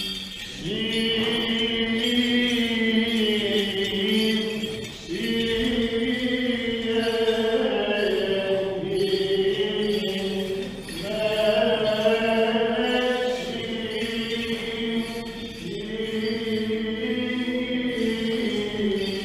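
Byzantine chant of a Greek Orthodox liturgy: long melismatic sung phrases, with held notes gliding from pitch to pitch and two short breaths, about five and eleven seconds in.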